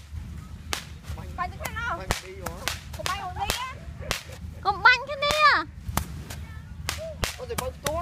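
Small fireworks going off in an irregular run of sharp cracks, with high-pitched excited voices squealing and calling out in between.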